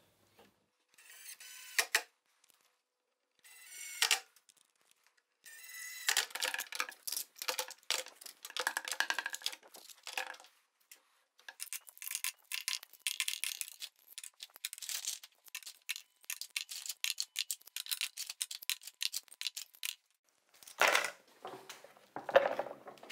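Screw clamps clinking and rattling as they are hung into sheet-metal clamp holders and knock against one another: rapid metallic clicks in several short bursts, the longest and busiest from about six seconds in to about twenty.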